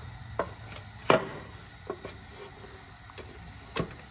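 Five sharp knocks at uneven intervals, the loudest about a second in: the valve cover of a Mitsubishi 2.4 L SOHC engine being set back onto the cylinder head.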